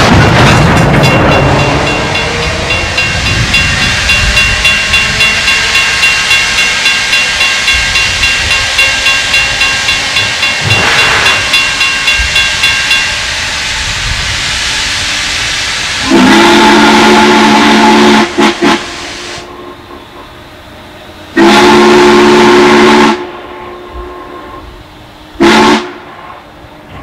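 Steam locomotive working a train: fast, rhythmic exhaust chuffs, about two to three a second, over hissing steam for the first dozen seconds, then fading. Its steam whistle then blows long, long, short, the opening of the grade-crossing signal.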